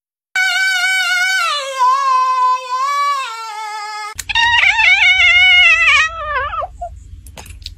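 A woman holds a long, high, wavering sung note that steps down in pitch, then a domestic cat gives a long drawn-out meow that wavers and falls away at the end, over a low hum.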